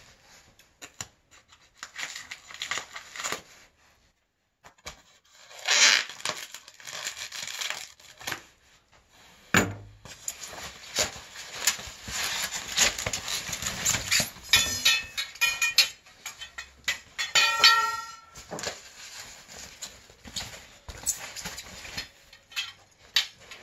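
Plastic packaging being cut with scissors, torn and crinkled, in several stretches of rustling with handling clicks, and a short squeak about three quarters of the way through.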